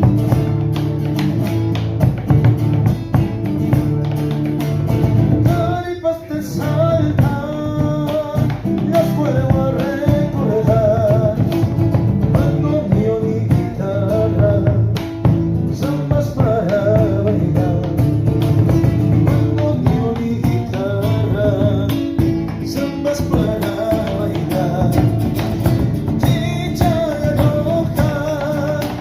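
Live folk music with strummed guitars and a wavering melody line above them.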